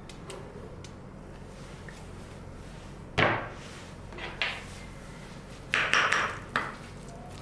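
Kitchen work at a counter: a few short knocks and scrapes, one about three seconds in, another a second later, and a cluster around six seconds, over a steady low hum.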